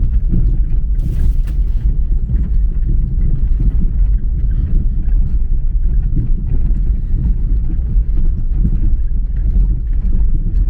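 Jeep Liberty driving slowly on a rough dirt road, a steady low rumble of engine and tyres on gravel.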